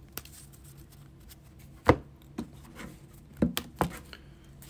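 Hands handling trading cards and packs on a table: a few sharp taps and knocks, the loudest about two seconds in, then a quicker cluster of three or four near the three-and-a-half-second mark.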